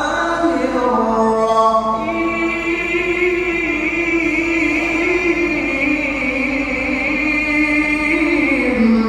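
A male qari reciting the Qur'an into a microphone in the melodic tilawah style. He holds one long ornamented phrase with a wavering vibrato, and the held note steps down in pitch a few times toward the end.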